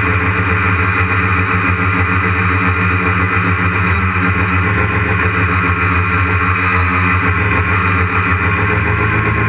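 Quadcopter's electric motors and propellers droning steadily in flight, heard close up from the camera mounted on the craft, with a slight wavering in pitch.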